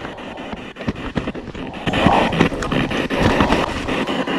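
P-SB7 spirit box sweeping through radio stations: choppy hiss of static broken by rapid clicks many times a second, with snatches of broadcast sound. The ghost hunters take one fragment for the word "byłem" ("I was").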